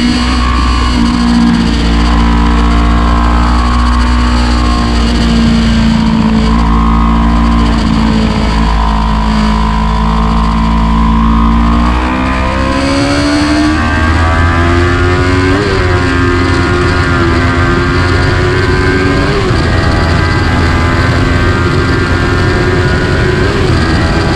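Motorcycle engine under load, recorded on board over strong wind rumble on the microphone. The engine note rises and falls through the corners, then climbs steadily as the bike accelerates, about halfway through.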